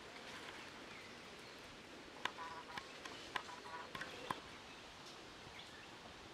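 Faint outdoor background with, about two seconds in, a brief run of short, rapid chattering animal calls broken by several sharp clicks.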